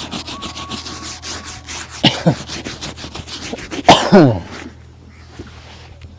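Quick, rapid rubbing strokes of a shoe being buffed and polished. Two loud, short sounds that fall in pitch cut in about two and four seconds in. The strokes stop shortly after the second one.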